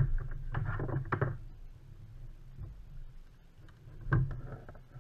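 Knocks and rattles of fishing gear being handled aboard a plastic kayak, over a low steady rumble. There is a sharp knock at the start, a cluster of knocks in the first second and a half, and one more knock about four seconds in.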